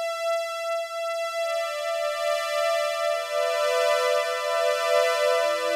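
CS-80 synthesizer string patch, two oscillators with effects, playing held notes that stack into a chord. A single note sounds first, and lower notes join one at a time about 1.5 s in, about 3 s in and near the end. Each note has a slight pulsing shimmer.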